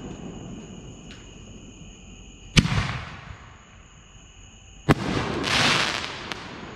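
White Hot Scorpion 5-inch canister shells going off: two sharp bangs a little over two seconds apart, each trailing off in a rumble. After the second bang comes a loud spreading crackle and hiss that lasts about a second and a half as the burst spreads.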